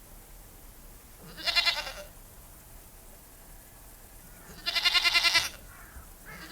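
Goat bleating twice: a short bleat about a second and a half in, then a longer, wavering bleat about five seconds in.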